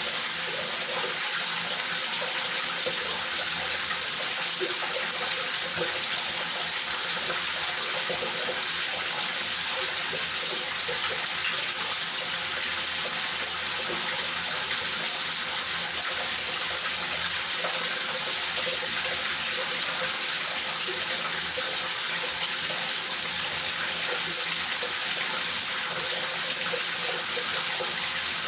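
Steady rain falling, an even hiss with no breaks or thunderclaps.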